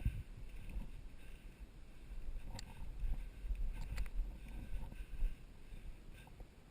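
Low rumbling wind noise buffeting the microphone, with a few short sharp clicks a little before the middle of the sound.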